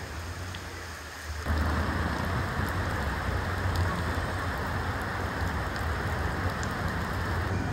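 Muddy floodwater rushing and churning in a fast torrent, a steady rushing noise with a low rumble that jumps sharply louder about a second and a half in.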